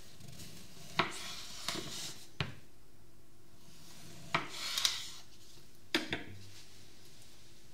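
Kitchen knife slicing rounds off a kiwi on a wooden cutting board: short rasping cuts through the skin, each ending in a sharp tap of the blade on the board. About six seconds in, the knife is laid down on the board with a clack.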